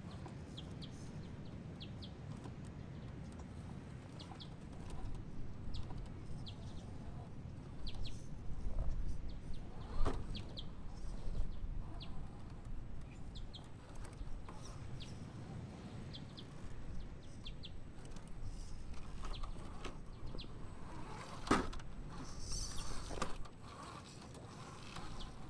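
Birds chirping in short, high calls scattered through, over a steady low rumble, with a few sharp knocks about ten seconds in and again near the end.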